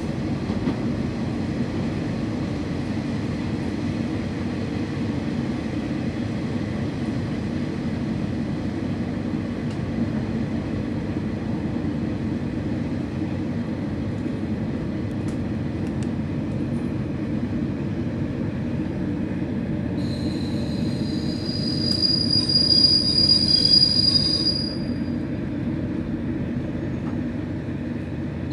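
KiHa 40 diesel railcar heard from inside the car: a steady low rumble of the diesel engine and wheels on the rails as it runs into the station. About twenty seconds in, a loud high squeal of the brakes lasts about five seconds as the railcar slows to a stop.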